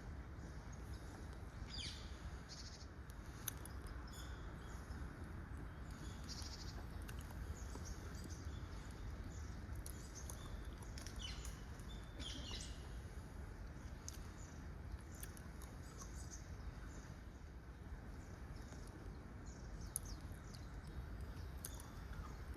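Short bird chirps and calls, scattered irregularly, over a steady low outdoor rumble.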